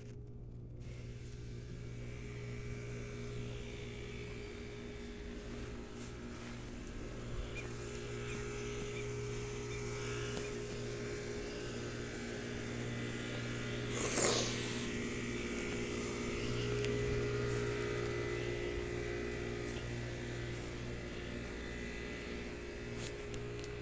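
Steady electrical hum from an outdoor HVAC condenser unit running, a low drone with several steady tones over it. A short rustling burst comes once about halfway through.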